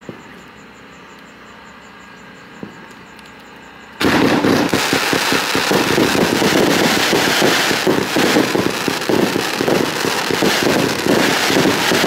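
Fireworks going off: two single pops in the first few seconds, then about four seconds in a loud, dense barrage of rapid pops and bangs starts suddenly and keeps going without a break.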